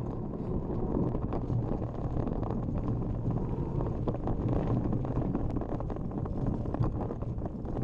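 Wind rushing over the camera microphone as a mountain bike descends a rough dirt trail, with many quick rattles and knocks from the bike jolting over the ground.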